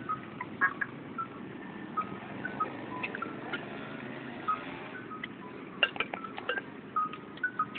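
Scattered light clinks and short ringing pings of flair bartending gear knocking and being caught, a cluster of sharper ones about six seconds in, over a steady low background noise.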